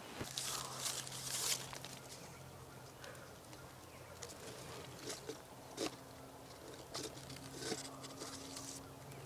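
Faint footsteps crunching and rustling through dry leaves, with scattered clicks, over a steady low hum. The rustling is thickest in the first second or two.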